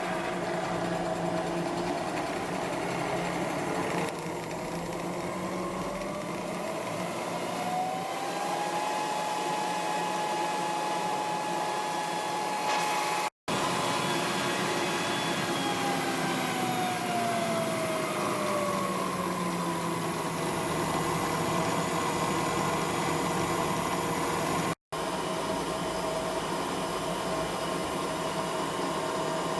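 LAGUN FTV-2S universal milling machine running under power: a steady machine noise with a motor whine that rises in pitch over several seconds, holds, then falls away again. The sound cuts out briefly twice.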